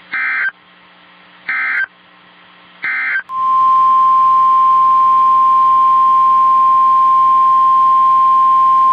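Three short bursts of the Specific Area Message Encoding (SAME) digital header, a buzzy warbling data tone about a second and a half apart, followed about three seconds in by the loud, steady single-pitch 1050 Hz NOAA Weather Radio warning alarm tone, which signals that a severe-weather warning follows.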